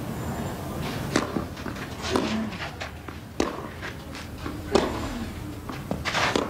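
Tennis serve and rally on a clay court: five sharp racket strikes on the ball, a second or so apart, two of them followed by a player's short grunt, over a low murmur from the stands.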